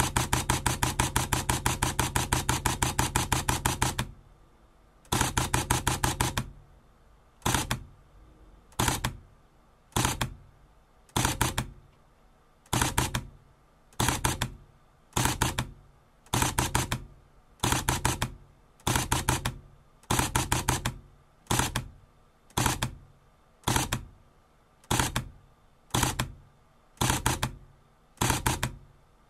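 Sony α55 (SLT-A55V) translucent-mirror camera shutter firing: a rapid burst of clicks at about six frames a second for about four seconds, a shorter burst a second later, then single shots repeating about every 1.3 seconds. Each frame gives two shutter sounds, because this camera has no electronic first curtain.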